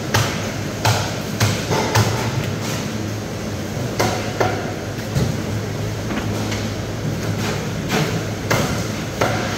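Sharp knocks and clatters, about a dozen at uneven intervals and most frequent in the first two seconds, over a steady low hum of machinery.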